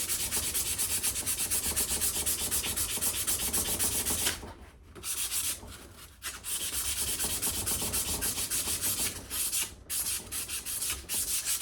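Sandpaper rubbed by hand over a rusty steel axe head in quick, even back-and-forth strokes, a dry scratchy hiss, pausing briefly about four and a half seconds in and again near ten seconds.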